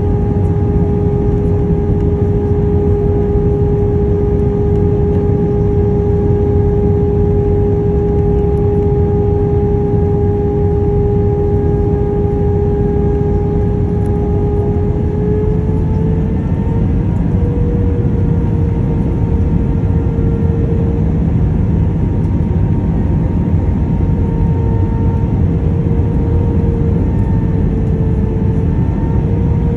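Airbus A319 cabin noise from over the wing on approach: a steady rush of airflow under the hum of the CFM56 engines. About halfway through, the engine tone rises a step and stays higher, as the engines spool up to more thrust.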